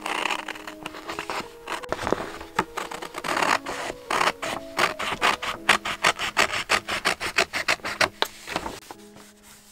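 Scissors cutting through a sheet of paper wallpaper: a quick series of snips and blade rasps, coming faster in the second half and stopping shortly before the end. Faint background music underneath.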